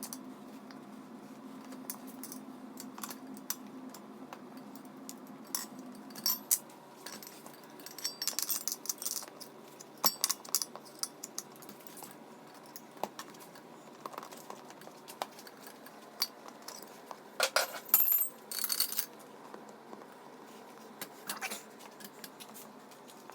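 Metal tyre spoons clicking and clinking against a dirt-bike wheel rim as the tyre bead is levered over it, in scattered irregular clicks with short bunches of clatter, the loudest a little past the middle.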